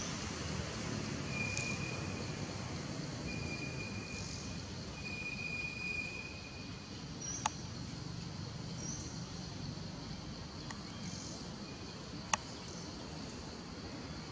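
Steady outdoor background noise with a low rumble. Three thin, high calls of about a second each sound in the first seven seconds, with a few short higher chirps, and two sharp clicks come about halfway and again later.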